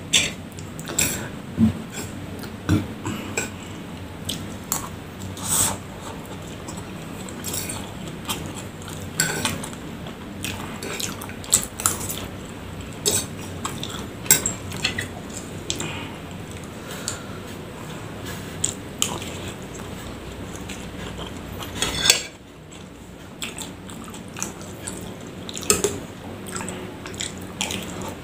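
Mukbang eating sounds: a metal fork clicking and scraping against a bowl of fried noodles and macaroni at irregular moments, with chewing in between. The loudest click comes about 22 seconds in.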